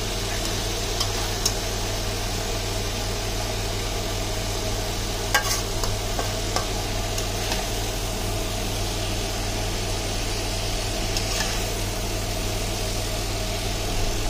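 Chicken curry with tomatoes and onions sizzling in a wok as a metal spatula stirs it, with a few sharp clicks of the spatula against the pan, the loudest about five seconds in. A steady low hum runs underneath.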